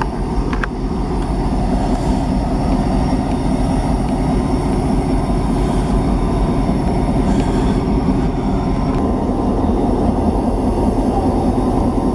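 Diesel locomotive engine idling with a steady low rumble and a constant hum.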